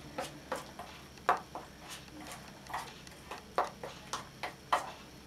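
A spoon clinking against a container while a runny honey mixture is stirred: about a dozen light, irregular taps, roughly two or three a second.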